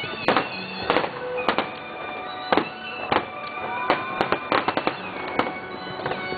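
Fireworks bursting overhead: a string of about a dozen sharp bangs, some coming in quick clusters around four to five seconds in.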